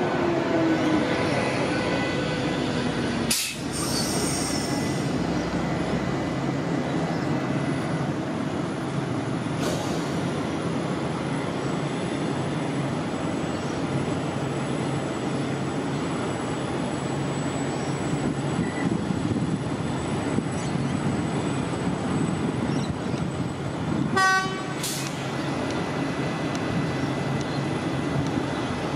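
Queensland Rail electric multiple-unit train: its motor whine falls in pitch during the first second, then the train makes a steady rumbling noise. About 24 seconds in there is a short, high toot.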